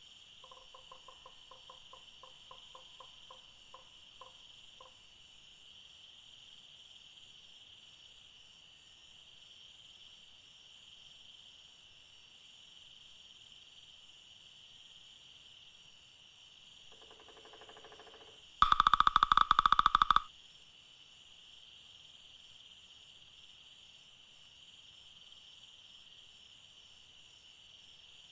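Woodpecker drumming: a loud, very rapid burst of knocks on wood lasting about a second and a half, about two-thirds of the way in, over a steady high insect chorus. In the first few seconds a bird gives a quick series of short evenly spaced call notes.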